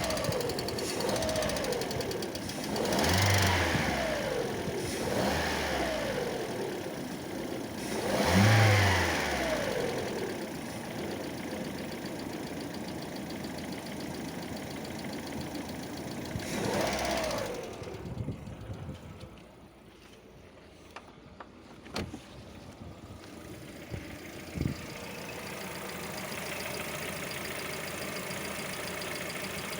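Lada Vesta petrol engine running with the knock of its hydraulic valve lifters, revved up and let fall back three times. About eighteen seconds in the sound drops much quieter, with a few sharp clicks, before steady running returns. The lifter knock is the owner's fault: it comes during warm-up and at times goes away once the engine is hot.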